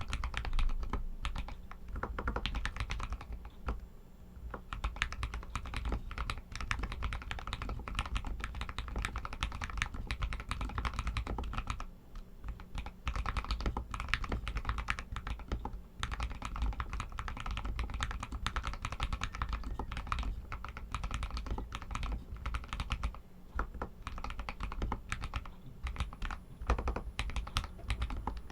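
RK61 mechanical keyboard with Outemu Red linear switches being typed on steadily: a quick, continuous stream of key presses, thinning out briefly a few times.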